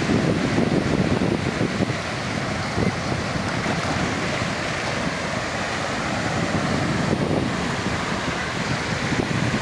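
Sea waves washing onto a sandy beach: a continuous rush of surf.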